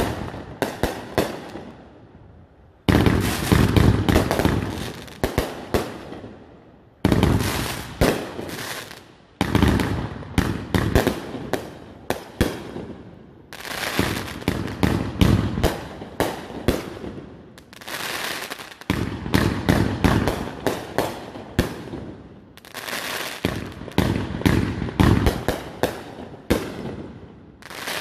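500-gram consumer firework cakes firing volleys of shells that burst into crackling stars: clusters of sharp reports and crackle, a new loud wave every three to five seconds, each fading before the next.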